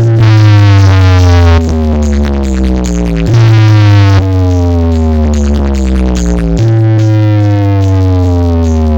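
Loud electronic DJ music played through a large sound-box rig: synth notes that slide downward in pitch, restarting every one to three seconds over a heavy bass.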